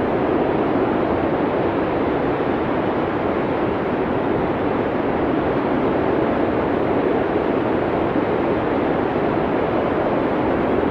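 Howling blizzard wind: a steady, dense rush of wind noise with no gusts or breaks standing out.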